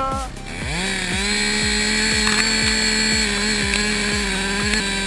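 Two-stroke chainsaw revved up about half a second in, then held at full throttle with a steady high-pitched whine. A steady music beat thumps underneath.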